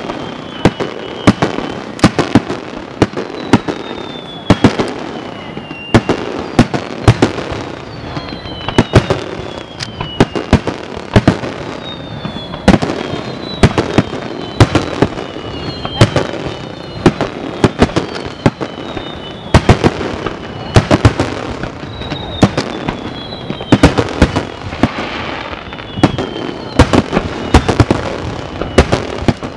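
Starmine fireworks barrage: aerial shells bursting in rapid succession, sharp booms about twice a second, with high whistles gliding down in pitch between the bursts.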